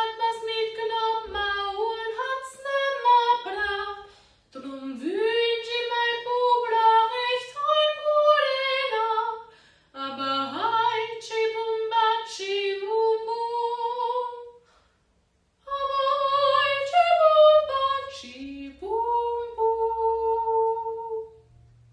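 Music: a solo high voice singing a slow melody in phrases of about four to five seconds, each starting with an upward slide, with faint low notes beneath.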